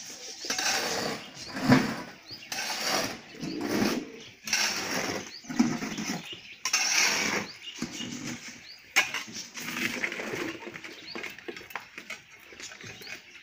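Domestic pigeons at a feeding spot: irregular wing flutters and low cooing coming and going every second or two.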